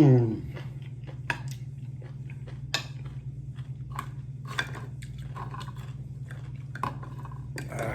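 Close-up chewing and crunching of food, with irregular crisp crackles and small clicks, over a steady low hum.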